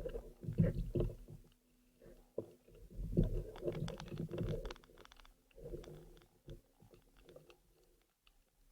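Muffled underwater rumbling and knocking with clusters of sharp clicks, over a faint steady hum; the sound dies down over the last couple of seconds.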